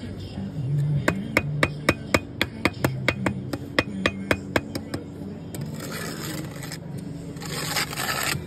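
A bricklayer's trowel taps a long white brick about four times a second for several seconds, bedding it down into white mortar to the level. Then the trowel scrapes mortar twice.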